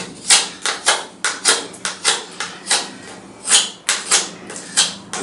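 Benchmade Barrage folding knife with an M390 steel blade whittling a wooden block by hand: a quick series of short scraping cuts, a few a second, each taking off a fine shaving.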